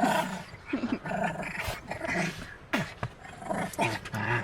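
A dog growling in a string of short, uneven growls.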